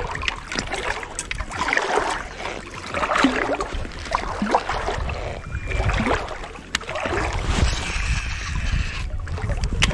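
Water sloshing and gurgling against a float tube as it moves across the water, with a low wind rumble on the microphone.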